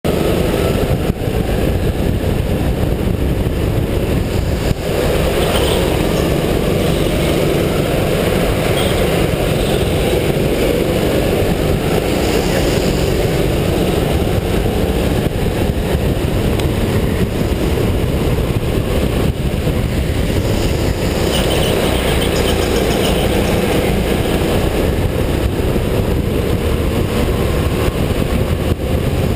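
Racing go-kart running steadily at speed around a track, heard from a camera mounted on the kart: a loud, constant engine and chassis din.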